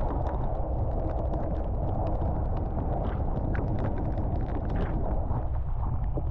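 Vehicle moving slowly along a wet gravel road in the rain: a steady low rumble and hiss of tyres and wind, with many scattered sharp ticks on top.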